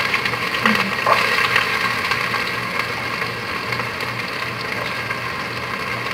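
Diced onions sizzling and crackling in hot oil in an aluminium pot on a gas stove, over a steady low hum.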